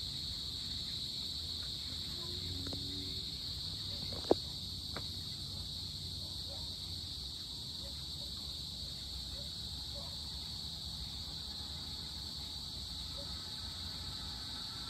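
Insects calling in a steady, continuous high-pitched chorus over a low background rumble, with one sharp click about four seconds in and a fainter one just after.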